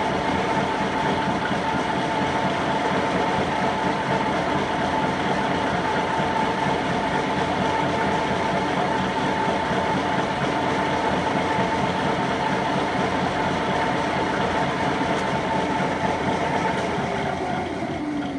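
Fellows Model 4-60 rack gear shaper running, its cutter head stroking up and down, a steady mechanical sound with a constant hum of several tones. Near the end the pitch falls and the sound begins to fade as the machine slows down.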